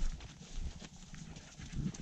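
Footsteps on a trail with a German Shepherd panting alongside: irregular soft thuds and short breathy pulses.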